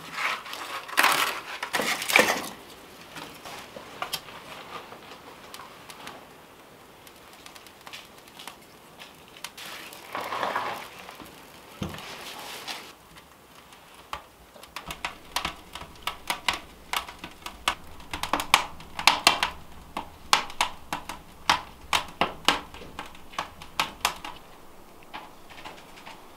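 A few metallic knocks from a cast-iron wood stove's door being handled, then a wood fire crackling inside the stove, with many sharp irregular pops from about halfway through.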